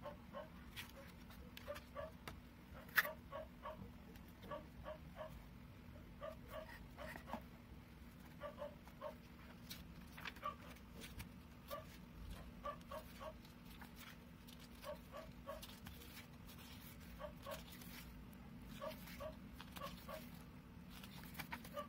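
A dog whimpering in short high whines that come in little groups of two or three, again and again. Under it, soft clicks of photobook pages being handled and turned, with one sharp click about three seconds in.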